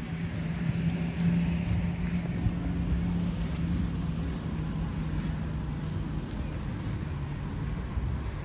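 Street traffic ambience with a steady low engine hum that fades out over the last couple of seconds.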